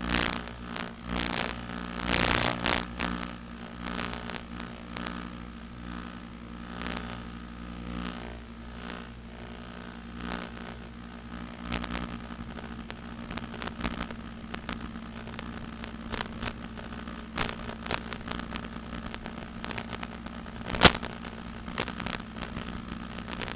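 Hexcopter's electric motors and propellers humming steadily in flight, with scattered crackles and one sharp click near the end.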